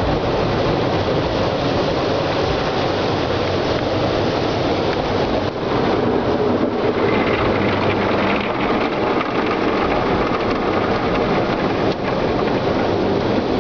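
Car wash machinery running: a steady, loud rushing rumble that dips briefly twice.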